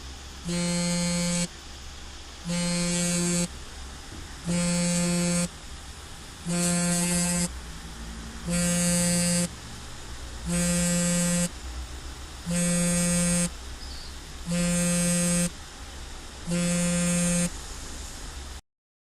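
Mobile phone vibrating: nine steady buzzes about a second long, one every two seconds, stopping suddenly near the end.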